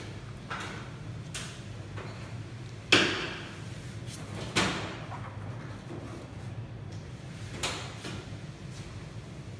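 Sharp slaps and knocks of a printed plastic snowboard topsheet being handled and laid onto the fibreglass layup in its mould, over a steady low hum. The loudest comes about three seconds in, another about a second and a half later and a weaker one near the end.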